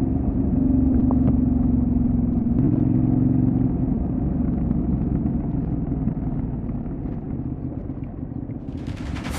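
Benelli Leoncino 800 Trail's parallel-twin engine running steadily on the road. About four seconds in its note weakens and grows quieter. Music comes in just before the end.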